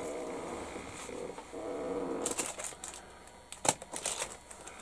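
Plastic model-kit parts and their packaging being handled: rustling and light clicks in the second half, with one sharp click a little after halfway as the loudest sound. A faint low hum-like sound runs through the first two seconds.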